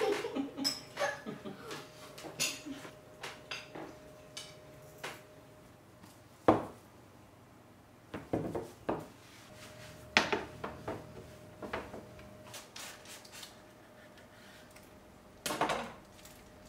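Cutlery and crockery clinking in scattered light taps and clicks, spoons against bowls and plates. There is one sharp knock about six and a half seconds in, and more clicks and knocks later.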